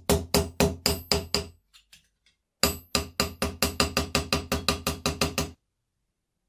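Hammer tapping metal in a quick, even rhythm of about four to five blows a second, each blow ringing. The tapping stops briefly about two seconds in, resumes, and cuts off abruptly near the end.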